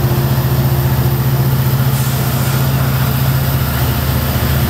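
Heavy engine idling steadily: a deep, even hum with a fast throb.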